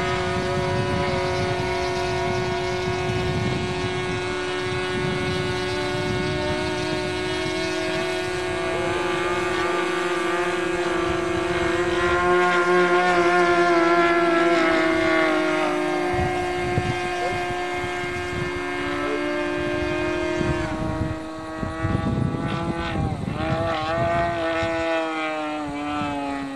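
OS 160 two-stroke engine of a radio-controlled Yak aerobatic model plane running in flight, holding a steady pitch with small shifts for most of the time. After about twenty seconds the pitch dips and rises several times as the plane manoeuvres, then falls away near the end.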